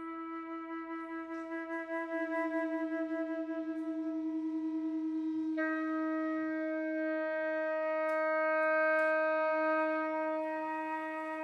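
Flute, oboe and clarinet holding long, nearly unison notes that beat against one another in a regular wavering pulse, the sound slowly swelling louder. About halfway through, the held notes shift to new pitches.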